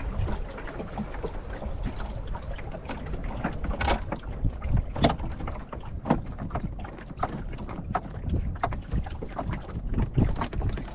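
Water slapping and splashing against the wooden hull of a John Welsford Navigator sailing dinghy under way, in irregular sharp slaps, over a low rumble of wind on the microphone.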